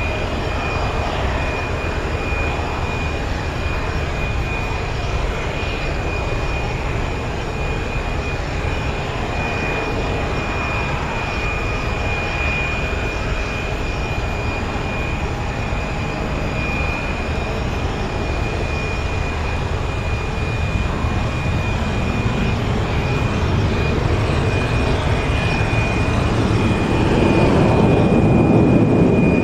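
Airbus A320 jet engines heard from the ground during a go-around. A steady low rumble grows louder over the last several seconds as the airliner climbs away toward the microphone. A steady high-pitched tone runs underneath throughout.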